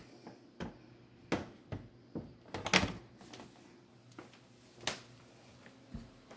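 Irregular knocks and clicks, about eight in all, the loudest a quick clatter about three seconds in, over a faint steady hum.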